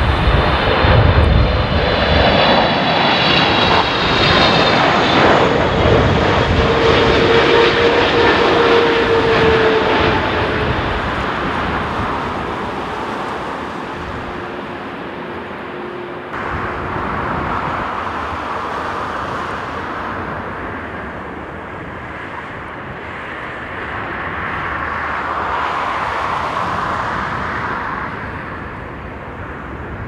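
Turbofan engines of a Boeing 777 airliner on short final passing close by: a loud roar with a high whine, fading as the jet goes down the runway. About halfway through the sound changes abruptly to a second landing airliner's engines, which swell and fade again.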